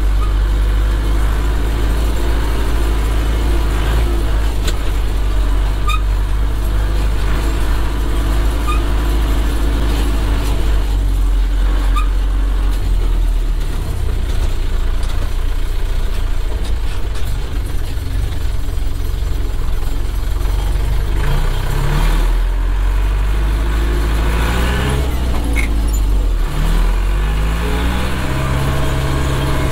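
Zetor 7211's 3.6-litre four-cylinder diesel engine running steadily under way, heard from inside the tractor cab. Toward the end the revs climb several times in quick succession, then hold at a higher steady pitch.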